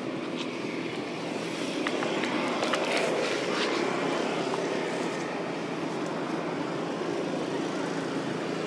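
A steady low engine hum, with a few light clicks about two to four seconds in.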